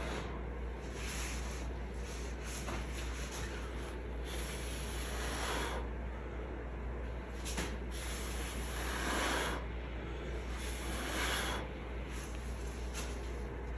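A person blowing by mouth onto wet acrylic paint in a series of short breathy puffs, one every second or two, pushing a teal paint bloom outward across the canvas.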